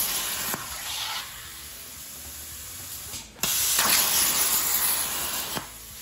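CNC plasma cutter torch cutting a small aluminum spacer: a steady hiss of arc and air that eases off about a second in, cuts out briefly about three seconds in, comes back loud for a second cut and stops shortly before the end.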